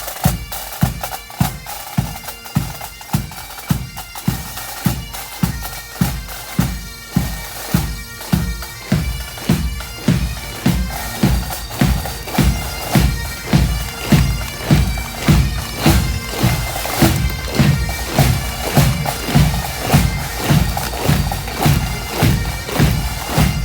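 Pipe band playing: bagpipes with their steady drone under the melody, over a marching drum beat of about two strokes a second that gets louder in the second half.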